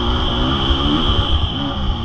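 Honda CRF450R motocross bike's single-cylinder four-stroke engine revving under throttle. Its pitch climbs and drops within the first second and a half, with another short rise near the end.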